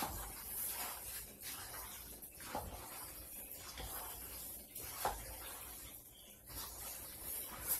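Wooden spatula stirring penne with tomatoes and grated cheese in a stainless steel pot: soft wet scraping and squelching, with a few louder knocks of the spatula against the pot.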